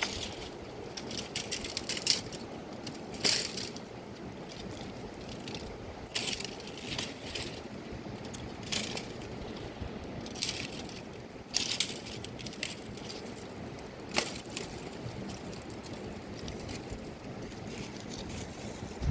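Irregular crunching and crackling over a steady low rushing background.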